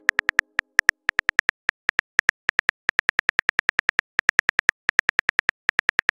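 Phone keyboard typing sound effect: a quick, uneven run of short, sharp key clicks, several a second, as a text message is typed out.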